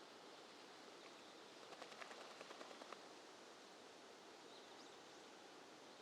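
Near silence: a faint steady outdoor hiss, with a brief run of soft, quick clicks about two seconds in.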